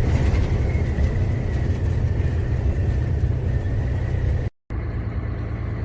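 Truck engine and road noise heard from inside the cab while driving: a steady low rumble with a faint steady whine above it. Near the end it cuts out for an instant and resumes slightly duller.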